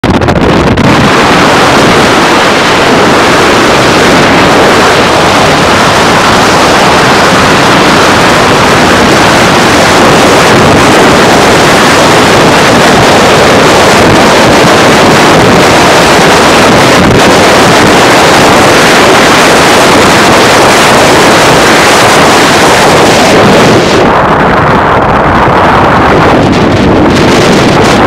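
Loud, steady rush of wind over the microphone mixed with road noise from a car travelling at highway speed. The hiss dulls briefly a few seconds before the end.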